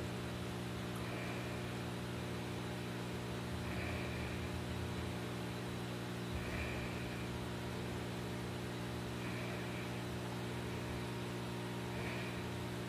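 Aquarium air pumps and equipment running: a steady electric hum with a hiss of air and water. A short faint higher chirp recurs about every three seconds.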